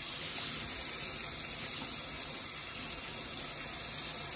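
Chicken and sliced onions sizzling steadily as they fry in hot mustard oil in an aluminium kadhai.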